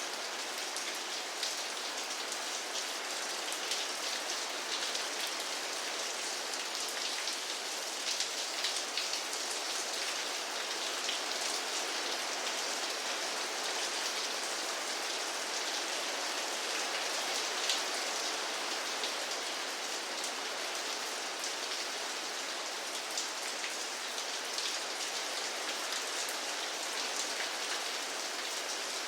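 Steady rain falling: a constant hiss with a dense patter of individual drop hits, bright and with little low end.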